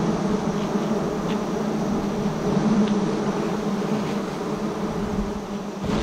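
A colony of wild honeybees buzzing around their nest in a steady low hum, with a few faint ticks.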